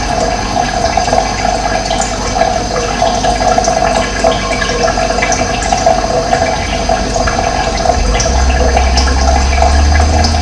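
Running water flowing steadily, with short bird chirps scattered over it. A low rumble joins about eight seconds in.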